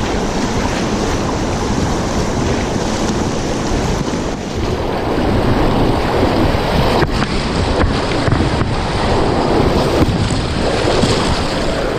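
Whitewater rapids rushing and splashing around an inflatable kayak running through them, a loud, steady wash of water noise, with wind and spray buffeting the microphone.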